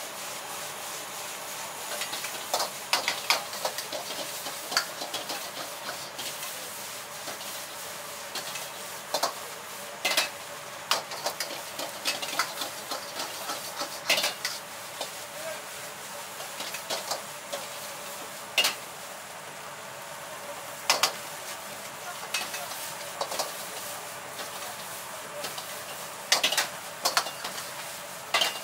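Egg fried rice sizzling in a wok over a gas flame, with a steady hiss of frying. A metal ladle scrapes the wok and strikes it in sharp, irregular clanks, several of them in quick clusters.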